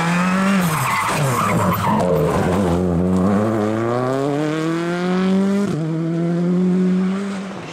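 Citroën C3 R5 rally car's turbocharged four-cylinder engine passing at speed. Its note drops about a second in as it slows for the bend, then climbs steadily for several seconds under acceleration, breaks briefly, and holds before fading as the car draws away.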